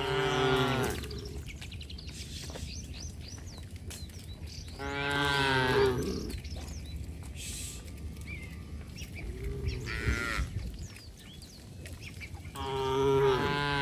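Cattle mooing: three loud, drawn-out moos spaced about five seconds apart, with a fainter, lower moo in between. Faint bird chirps in the background.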